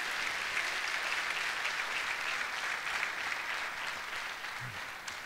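Audience applauding, a steady clapping that tapers off near the end.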